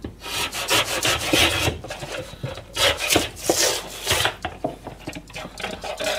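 A deba kitchen knife cutting through an empty paper drink carton on a plastic cutting board, a run of rasping, scraping strokes mixed with the crackle of the paperboard being handled.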